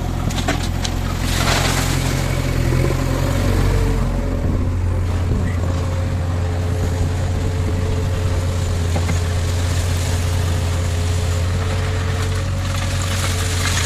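Heavy diesel engine of a backhoe loader or tractor running steadily with a low hum; its note changes about four seconds in. A brief hiss comes about a second and a half in.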